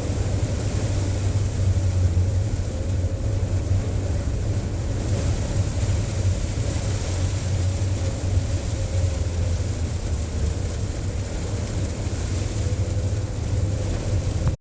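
Strong sandstorm wind buffeting the microphone: a steady, heavy low rumble under a constant rushing hiss.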